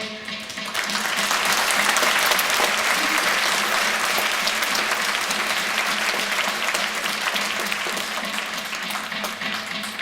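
Audience applauding, swelling about a second in and slowly thinning toward the end.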